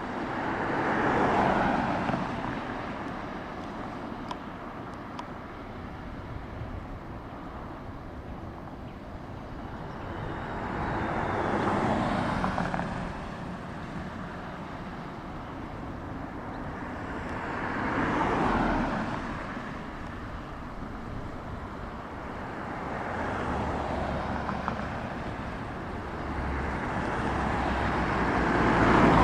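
Road traffic passing one vehicle at a time: about five cars go by, each swelling and fading over a few seconds. Near the end a heavier, lower engine hum builds.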